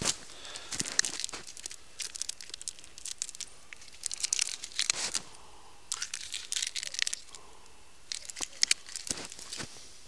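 Packaging being crinkled and torn by hand, in several bouts of crackling rustle with short pauses between them.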